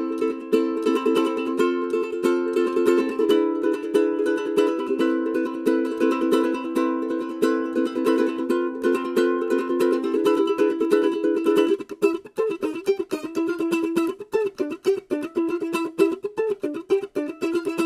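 Adela ukulele played as a tone test: strummed chords, changing to a picked single-note melody about twelve seconds in.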